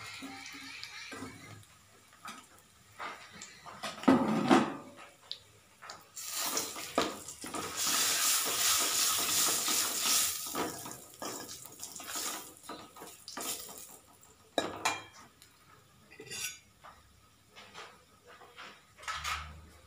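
Metal ladle scraping and clinking against an iron kadhai as ground spices are stirred in hot oil. About six seconds in there is a few seconds of steady sizzling hiss.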